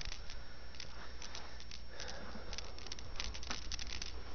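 Handling noise: scattered light clicks, taps and rustles as a handheld camera is moved about and things are shifted, over a low steady hum.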